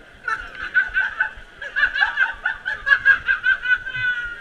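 A person laughing: a rapid, high-pitched cackle of about four or five pulses a second. It ends in one longer drawn-out note.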